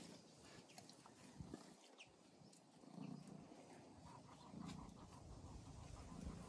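Faint breathing of a German Shepherd lying down, soft puffs about every second and a half.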